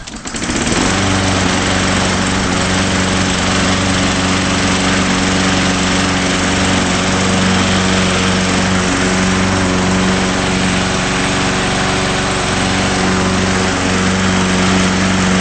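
Craftsman 20-inch push lawn mower's small engine starting up about half a second in, then running steadily at a constant speed.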